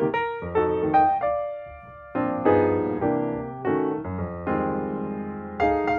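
Piano music: chords and single notes struck and left to fade, with a softer moment just before a fresh chord about two seconds in.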